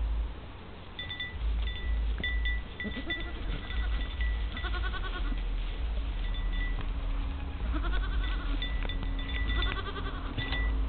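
Pygmy goat kid bleating: about three short, high, wavering bleats. Brief clear chime-like tones ring now and then behind them.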